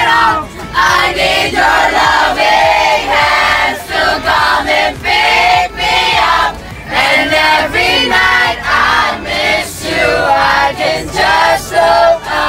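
A busload of young passengers singing a song together loudly, many voices at once, in phrases of a second or two with short breaks between.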